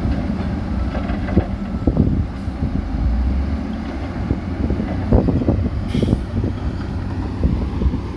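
Heavy diesel construction machinery running with a steady low engine rumble, with irregular knocks and clatters of big stone being moved.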